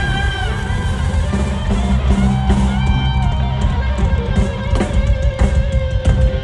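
Live rock band playing on stage: electric guitar over a drum kit.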